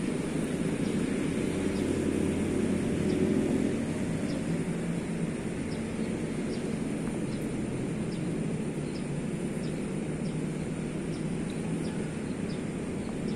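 Steady low outdoor rumble that swells slightly a few seconds in, with faint, regular high ticks about twice a second above it.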